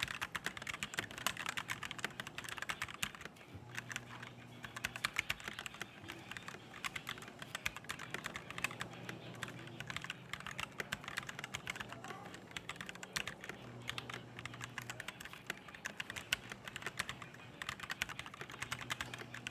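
Rapid, continuous typing on an Ajazz K680T mechanical keyboard with black switches, a dense run of key clacks. The switches sound as if factory-lubed.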